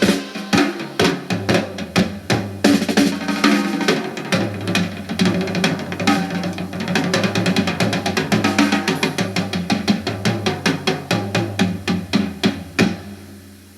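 Drum-heavy music with a steady bass line and fast snare and tom rolls playing through a JVC RC-M90 boombox's speakers, fading out near the end.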